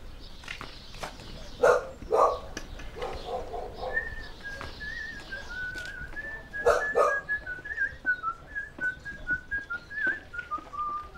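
A dog barks: two loud barks about two seconds in and two more around seven seconds, with a few smaller yaps between. From about four seconds in, someone whistles a slow tune that drifts gradually lower in pitch.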